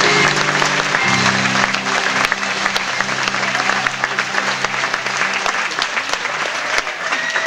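Theatre audience applauding over the sustained chords of the closing music at the end of an act; the chord changes about a second in.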